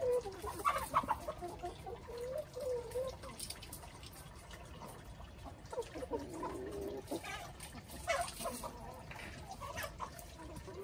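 Flock of hens and roosters clucking as they forage, with short calls coming in several spells.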